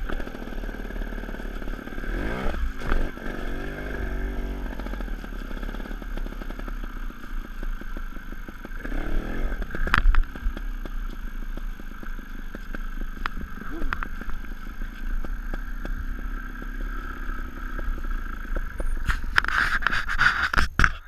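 Sherco 290 ST two-stroke trials motorcycle engine running at low revs, revving up briefly about two and a half and nine seconds in, with a few sharp knocks in the middle. A louder rushing noise comes up near the end before the sound cuts off.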